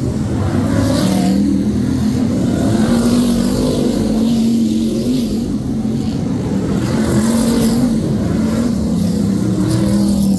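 A pack of BriSCA F1 stock cars racing, their V8 engines running loud and revving, the engine note rising and falling as the cars pass.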